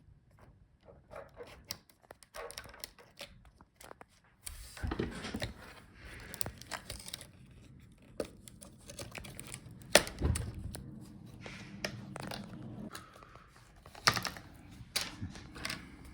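Scattered clicks, scrapes and rustling as a laptop motherboard is worked loose and lifted out of its case by hand, with a sharp knock about ten seconds in and another about fourteen seconds in.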